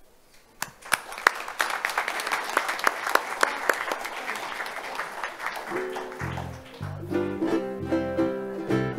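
Applause breaks out about half a second in. Around six seconds in, a small string band of guitars starts playing a plucked tune over a walking bass line as the clapping fades.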